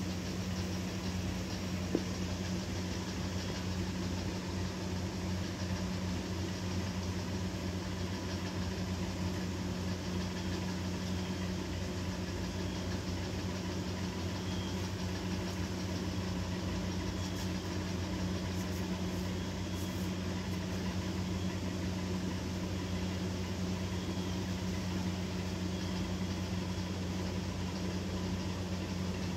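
A steady, low mechanical hum that runs unbroken, with a single small click about two seconds in.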